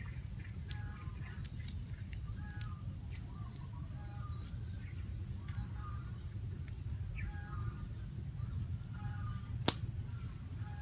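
A steady low rumble with short chirping animal calls repeating about once a second, and one sharp click near the end.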